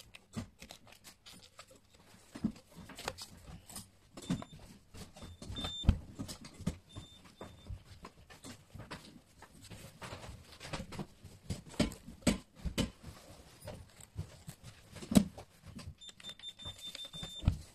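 Clicks and knocks of an OSPON OS389FC biometric gun safe's plastic-and-metal lid and parts being handled and fitted, with a few louder thumps. Short high electronic beeps come from its keypad as buttons are pressed, including a run of beeps near the end.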